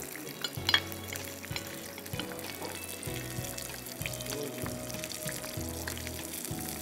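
Panko-crumbed red snapper fillets shallow-frying in hot oil in a pan, a steady sizzle, with a single sharp tap a little under a second in.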